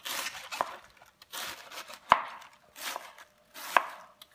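Kitchen knife slicing through a head of cabbage on a plastic cutting board: three slow strokes, each a crisp crunch through the leaves ending in a sharp knock of the blade on the board.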